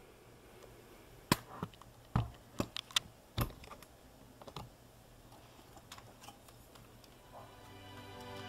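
Handling noise: about ten light clicks and knocks, mostly in the first half. Music fades in near the end.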